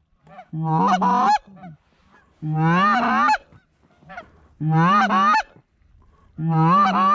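Canada goose honks blown on a hunter's goose call to bring in an approaching flock: four short runs of quick honks, evenly spaced about two seconds apart.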